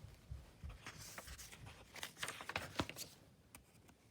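Faint paper rustling and a few soft clicks, as a picture book's page is handled and turned.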